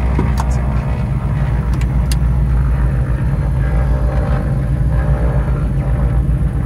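Diamond DA62's twin turbo-diesel engines and propellers running at low taxi power, heard from inside the cockpit as a steady low drone. A few light clicks come in the first two seconds.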